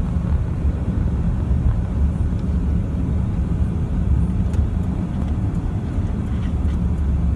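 Steady low rumble of a car heard from inside its cabin.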